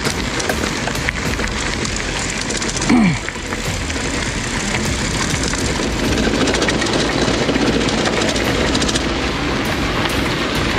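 Bicycle rattling and clattering over a rough trail, with a steady rushing noise and many small clicks and knocks. A short tone slides downward in pitch about three seconds in.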